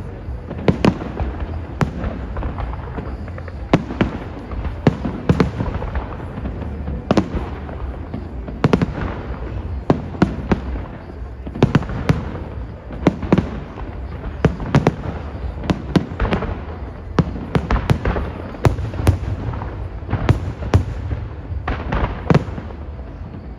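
Aerial fireworks shells bursting in a long, irregular series of sharp bangs, often one or two a second, over a steady low rumble.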